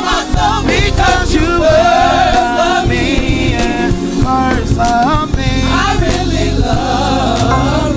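Gospel song: a singer's voice gliding between notes over band accompaniment with bass and a steady beat.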